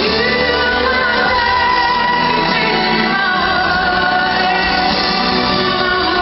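Female vocalist singing live with a band, holding long sustained notes that step from pitch to pitch.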